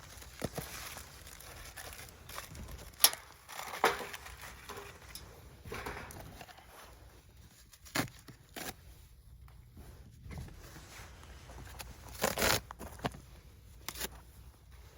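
Handling sounds of cardboard and firewood being set up for a campfire: a few scattered sharp knocks and clicks, the loudest about three seconds in, with faint crinkling between them.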